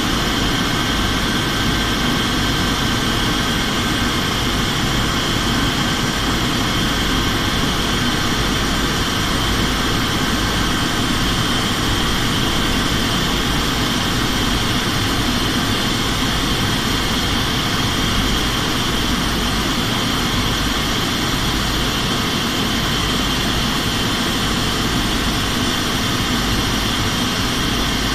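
Steady engine and airflow noise heard inside an aircraft during its descent, with a constant high whine over the roar and no change in level.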